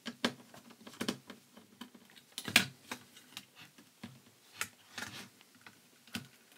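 Scattered clicks and light knocks of a screwdriver, screws and a circuit board against a sheet-metal bracket as an old power-supply board is unscrewed and lifted off its mount, with one louder knock about two and a half seconds in.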